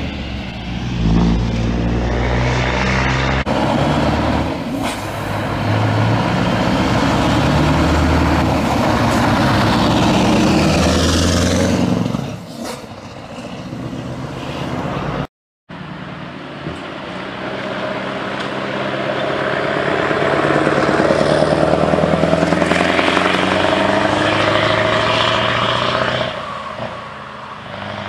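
Heavy trucks with open, straight-piped exhausts driving past one after another. Their engine note climbs and then drops back again and again as they accelerate through the gears. The sound cuts out for about half a second near the middle.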